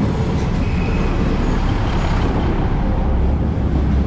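State Railway of Thailand diesel railcar train passing at close range, a steady loud rumble of its engines and wheels on the rails. The low rumble swells about three seconds in as the cars draw level.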